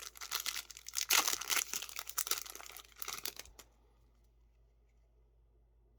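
Foil wrapper of a Yu-Gi-Oh! booster pack being torn open and handled: a dense crackling for about three and a half seconds, then it stops.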